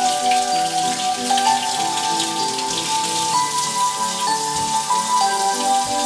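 Kitchen faucet running, water splashing and pattering on apples and into the sink as they are rinsed, over soft background music with slow held notes.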